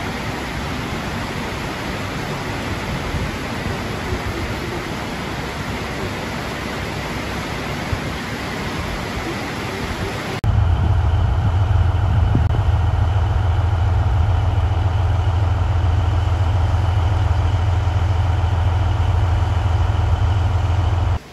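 Steady, noisy running of a KiHa 40 diesel railcar idling at a platform. After an abrupt cut about halfway through, a DE200 diesel-electric freight locomotive's engine runs with a louder, steady low drone and a few steady higher tones.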